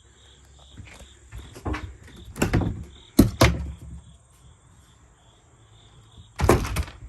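A few knocks and thumps of doors or fittings being handled inside a travel trailer, with two close together about three seconds in and another near the end. A faint high chirp pulses steadily underneath.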